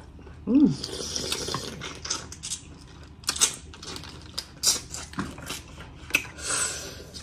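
Close-miked eating noises from crawfish: many sharp clicks from shells and lips, and hissy sucking, with a short "mm" hum about half a second in.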